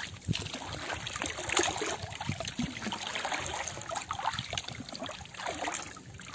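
Sea water lapping and trickling against the hull of a small boat, with small irregular splashes.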